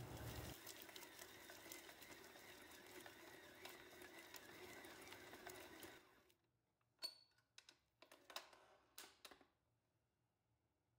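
Stand mixer running faintly on low, its beater churning chopped walnuts and chocolate chips through stiff cookie dough in a steel bowl. It stops about six seconds in, followed by a few sharp clicks and knocks as the mixer head is raised.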